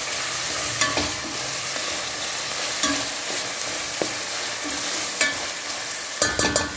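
Ground pork, shrimp and onions sizzling in oil in a stainless steel pan while a spatula stirs them. The spatula scrapes and knocks against the pan every second or two, with a quick cluster of knocks near the end.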